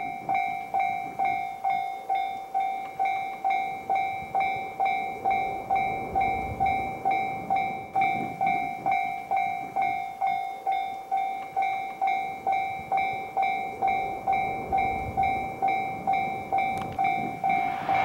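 Japanese railway level-crossing warning bell ringing steadily at about two dings a second, signalling that a train is approaching.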